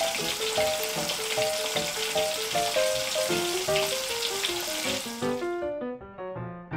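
Hot oil sizzling steadily as battered slices fry, over a light tinkly background melody. The sizzle cuts off sharply about five and a half seconds in, leaving only the music.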